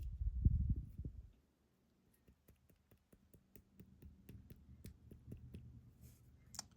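A dull low knock of handling, then a run of light, irregular metal clicks and ticks, a few a second, as small tools pick at the pin springs inside an ASSA Guideline lock cylinder; the springs are stuck and will not come out.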